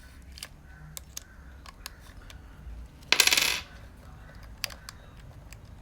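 Light clicks of small metal parts being handled, then a brief metallic clatter about three seconds in, such as a small battery or cover dropped onto a hard surface.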